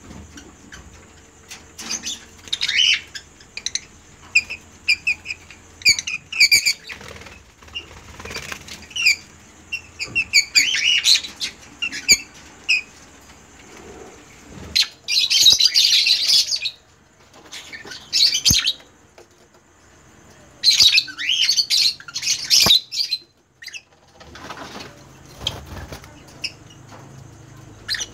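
Lovebirds chirping in short, high calls, with several louder bursts of wing flapping in the second half.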